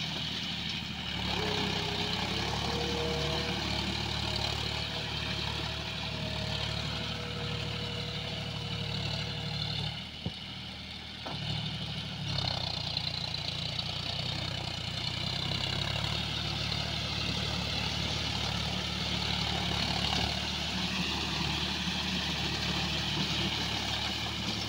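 John Deere 5045D tractor's three-cylinder diesel engine running steadily under load while pulling a rotary tiller through wet paddy-field mud. The engine briefly grows fainter about ten seconds in as the tractor moves off, then comes back up.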